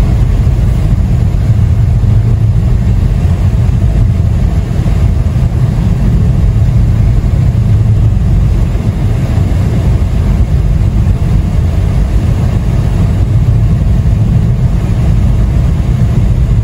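Steady low rumble inside a moving car: engine and tyre noise from driving on a snow-covered highway.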